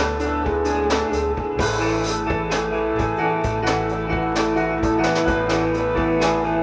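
Band music: a drum kit keeping a steady beat under held guitar chords, with the bass line moving to new notes about one and a half seconds in.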